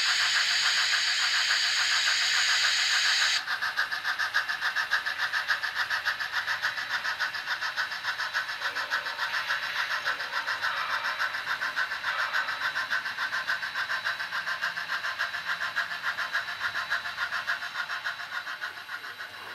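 Sound of an HO-scale model steam locomotive: fast, even chuffing at about three beats a second. It is brighter and harsher for the first three and a half seconds.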